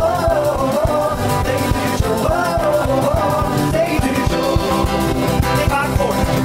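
Live band music: a male lead voice singing over strummed acoustic guitar and a drum kit keeping a steady beat.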